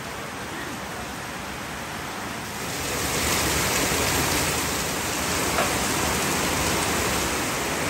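Heavy rain pouring down: a steady hiss that grows louder about three seconds in.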